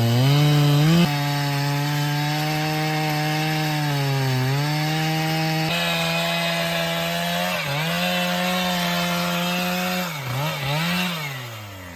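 Two-stroke chainsaw running at high revs, its pitch dipping briefly a few times. Near the end the throttle is released and the engine winds down.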